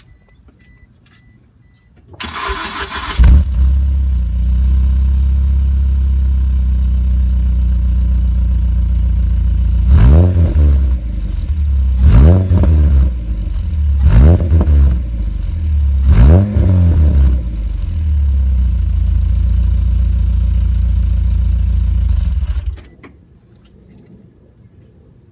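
Pulsar's engine running with the exhaust silencer removed. It is cranked for about a second, catches loudly and idles with a loud, unmuffled exhaust. It is revved four times about two seconds apart, each rev rising and falling in pitch, and is switched off near the end.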